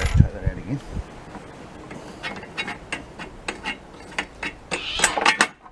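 A run of small, sharp metal clicks and clinks, with a denser cluster near the end: a washer and bolt being handled and fitted.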